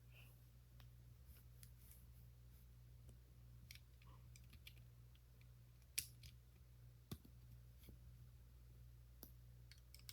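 Faint, scattered clicks of small plastic Lego pieces being handled, with a sharper click about six seconds in and another about a second later, over a steady low hum.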